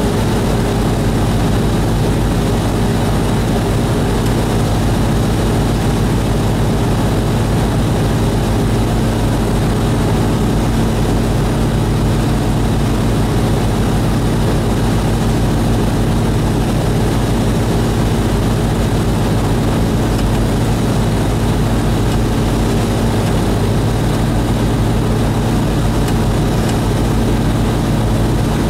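A single-engine light aircraft's engine and propeller droning steadily in flight, heard from inside the cockpit, with a deep hum and a few steady tones and no change in level.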